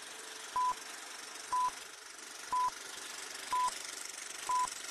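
Film-leader countdown beeps: five short, high, identical tones, one a second, one for each number counted down, over a steady hiss.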